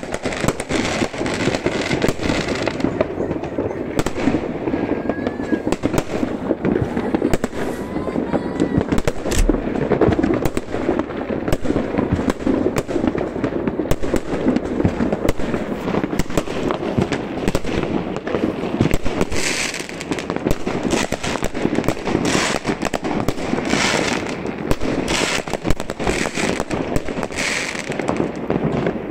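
Many fireworks going off at once: rockets and aerial shells bursting overhead in a dense, unbroken crackle of bangs and pops.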